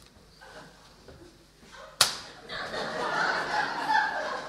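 One sharp crack about two seconds in, followed by a swell of audience noise.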